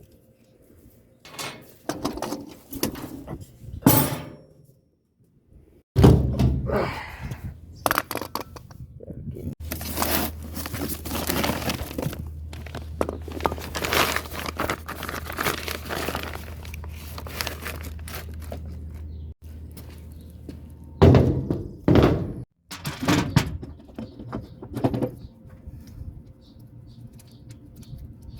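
Perkins diesel engine on a road sweeper cranked by its starter about six seconds in, then running with a steady low hum for about ten seconds before stopping. Sharp metal knocks and clanks come before and after it.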